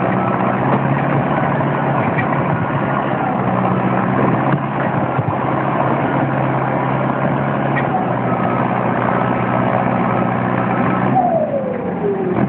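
Forestry forwarder's diesel engine running at high revs while the machine works in deep mud. About 11 seconds in the revs drop away with a falling whine.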